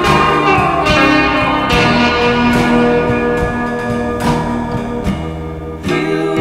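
Background music: an instrumental passage of a song with several pitched notes held together and a few sharp struck notes that ring on.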